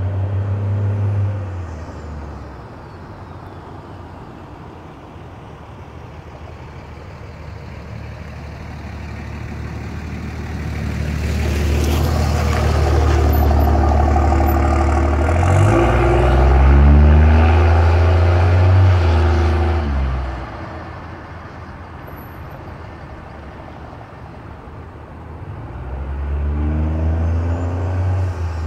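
Straight-piped 5.9 litre Cummins inline-six turbo diesel with a second-generation exhaust manifold, in a 2007 Dodge Ram 2500, driving by. It fades as the truck pulls away, then builds and is loudest as the truck passes close, accelerating with its pitch climbing. About twenty seconds in it cuts back sharply, and it swells again near the end.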